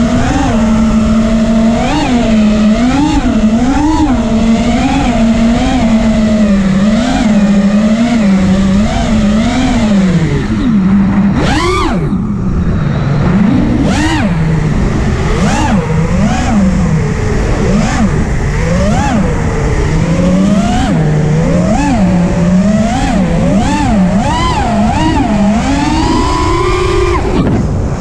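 FPV quadcopter's brushless motors (Garila 2506 2600kv) whining, the pitch swinging up and down constantly with the throttle. Near the end the whine climbs for a couple of seconds, then drops sharply as the quad rolls upside down.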